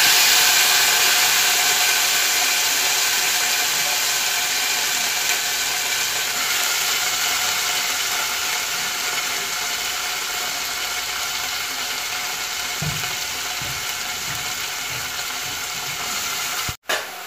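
Chopped fenugreek leaves sizzling in hot oil in an aluminium pot: a steady hiss that slowly dies down. A few soft thuds come near the end.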